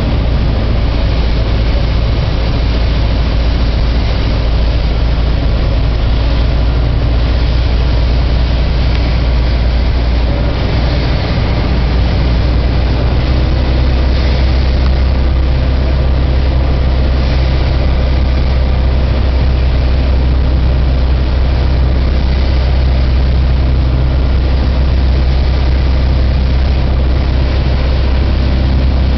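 Beechcraft Sundowner's four-cylinder Lycoming O-360 engine and propeller running steadily on the landing approach: a loud, even low drone that changes slightly in tone about eleven seconds in.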